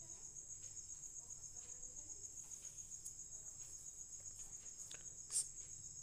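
Faint, steady high-pitched chirring of crickets, a fast even pulse, with a brief click near the end.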